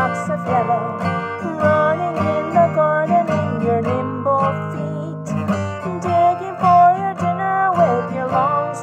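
Woman singing a children's song while strumming an acoustic guitar in a steady rhythm.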